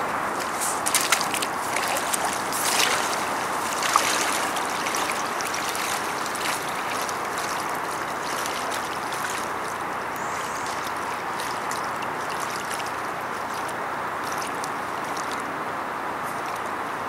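Steady rushing, sloshing water noise, with a few sharp clicks and knocks in the first four seconds.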